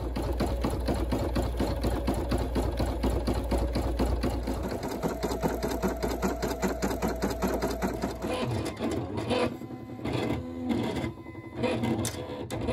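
Computerised home embroidery machine, a Brother PE-800, stitching lettering with rapid, regular needle strokes. Some eight seconds in, the sound turns broken, in short runs with gaps.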